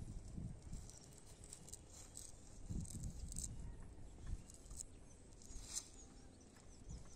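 Faint, crisp rustling of a hand cast net being gathered and arranged in the hands, with a few soft low thumps.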